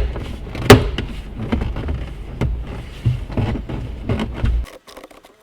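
Plastic center-console side panel being forced into place in a car interior: two sharp knocks less than a second apart near the start, then a run of smaller clicks and scraping over handling rumble, stopping abruptly near the end.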